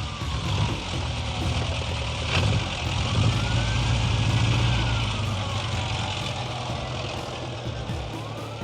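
Police car's engine running, swelling to its loudest about midway, while its siren wails slowly up and down.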